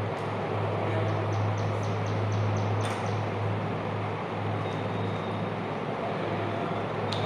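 Steady background noise with a low hum. A quick run of light ticks comes about a second and a half in, and single sharp clicks come near three seconds and near the end.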